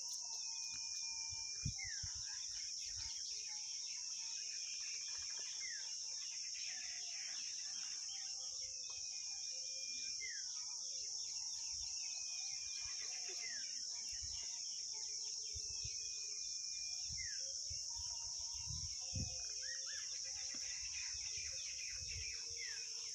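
Steady high drone of insects, with a bird repeating a drawn-out whistled call that holds one pitch and then drops sharply at the end, about every three seconds. Two brief low thumps, one near the start and one near the end.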